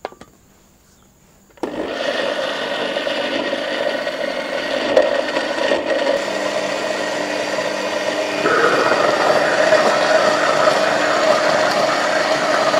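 Electric blender grinding dried chillies, shallots and water into chilli paste, starting about a second and a half in after a click as the lid is pressed on. It runs steadily, and its pitch shifts higher about two-thirds of the way through as the chunky mix turns to a smooth, swirling paste.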